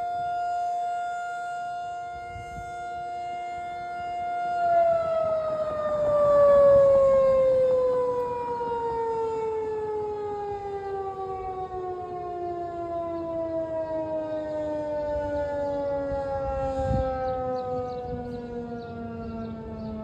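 Federal Signal 2001-SRN outdoor warning siren holding its steady full-alert tone, then, about five seconds in, winding down with its pitch falling slowly and smoothly as the rotor coasts to a stop at the end of the test.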